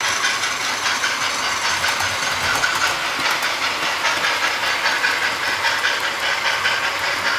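Model train running on a model railway layout, a steady hiss with faint, regular clicking of the kind a DCC sound-fitted locomotive and its wheels on the track make.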